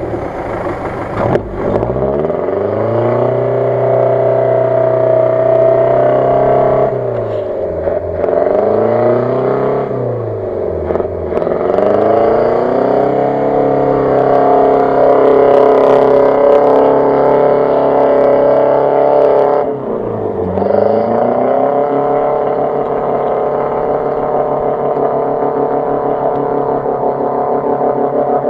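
Off-road 4x4's engine revved hard and held at high revs for several seconds at a time, dropping back briefly about three times before climbing again, as the vehicle strains in deep mud and water during a tow recovery.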